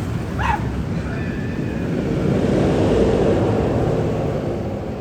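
Magnum XL 200 roller coaster train rumbling past, swelling to a peak about three seconds in and then fading. A short high squeal comes near the start.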